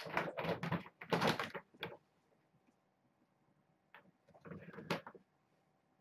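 Dry cat food kibble rattling into a near-empty plastic container, with the plastic food bag rustling: two rattly bursts of a second or so near the start, then another cluster with a sharp click about four and a half seconds in.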